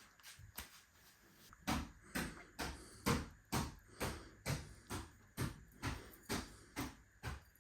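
Steady rhythmic knocking, about two sharp knocks a second, starting about a second and a half in after a few fainter taps.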